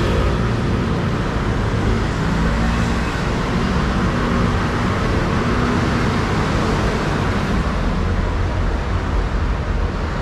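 Steady road traffic noise, cars and other vehicles running past with a low engine hum.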